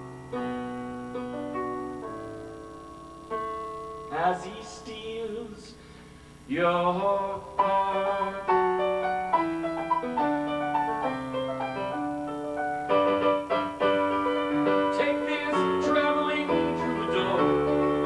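Piano music: a song arrangement of sustained piano chords and melody, getting fuller and louder about six seconds in.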